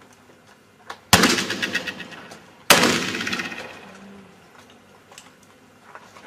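Two black powder pistol shots about a second and a half apart, each followed by a long echoing decay.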